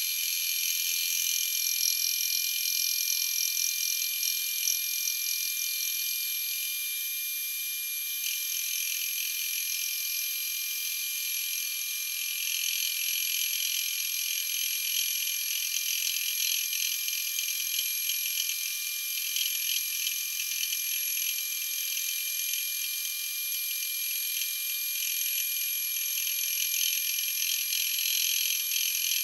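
Round column milling machine running a homemade fly cutter through a facing cut on a Cummins 5.9 cast iron exhaust manifold, milling it flat: a steady high-pitched whine with a grainy cutting rasp that grows rougher about halfway through.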